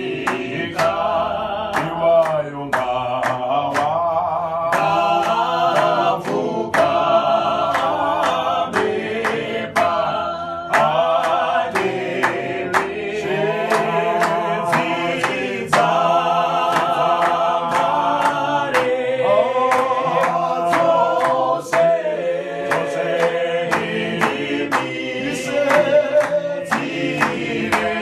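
A small mixed group of men and women singing a Shona hymn a cappella in harmony, with steady hand claps, about two a second, keeping the beat.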